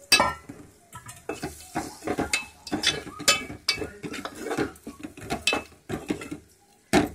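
Metal spoon stirring in a metal pot, scraping and clinking against its sides and bottom in irregular knocks as fish roe is turned through an oily masala.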